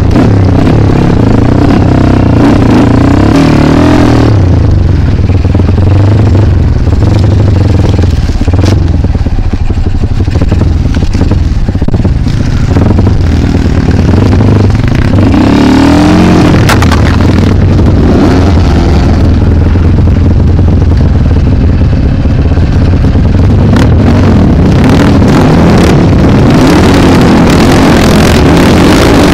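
Single-cylinder engine of a KLX trail bike fitted with a Honda Mega Pro engine, running loud and close while being ridden. The revs rise and fall repeatedly, with bursts of throttle near the start, about halfway through, and near the end.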